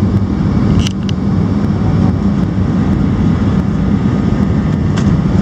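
Loud, steady roar of a Boeing 737's engines and rushing air heard inside the passenger cabin, with a few brief rattles about a second in and near the end.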